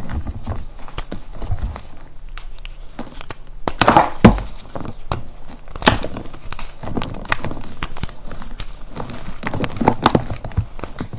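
Hands crushing and crumbling chunks of reformed gym chalk, a steady run of dry crunches and crackles. The loudest crunch comes about four seconds in, with another sharp one about two seconds later.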